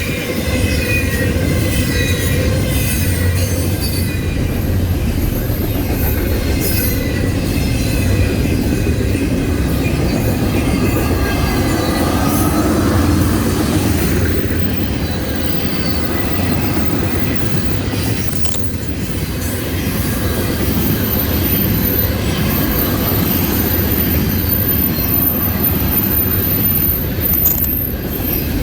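Freight train cars rolling past on the rails with a steady rumble, their wheels squealing with high ringing tones that are strongest in the first ten seconds or so.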